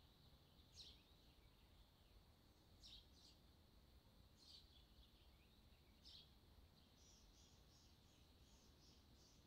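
Near silence with faint bird chirps: a few scattered short chirps, then a quick run of repeated high notes at about three a second from about seven seconds in.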